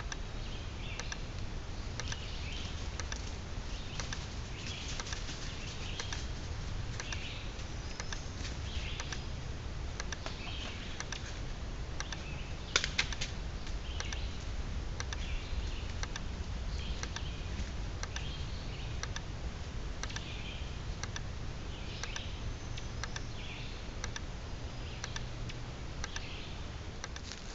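Outdoor sound picked up by a Hawk Ray trail camera's built-in microphone: repeated chirps about once a second over a steady low rumble, with scattered faint clicks and one sharper click about halfway through.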